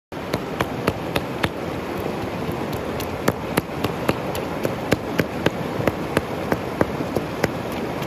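A rounded river stone pounding chopped mutton against a flat rock, making regular knocks about three a second with a short lull about two seconds in. A rushing mountain stream runs steadily underneath.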